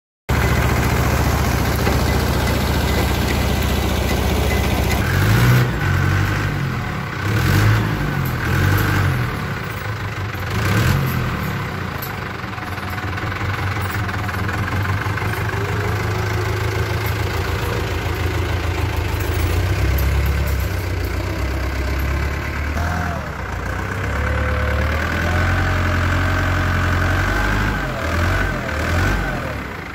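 Ursus C-330 tractor's two-cylinder diesel running as its front loader works a manure heap, the engine note swelling and dropping several times in the first third. Near the end a whine that wavers up and down in pitch comes in over the engine.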